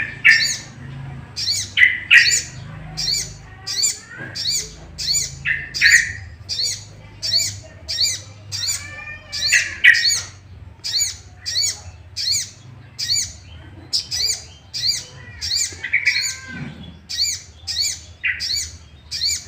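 Ruby-cheeked sunbird (sogon, sogok ontong) calling in an agitated state: a rapid, even string of sharp, high chips, about two a second, broken now and then by lower warbled notes. It is the aggressive, worked-up calling used to provoke other sogon birds into singing.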